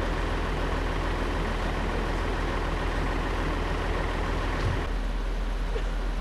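Steady low rumble of heavy vehicle engines idling, over a constant outdoor din. The sound changes abruptly near the end.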